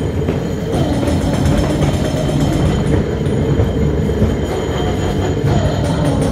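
Ghost train ride car rumbling steadily along its track, with a faint thin high whine above the rumble.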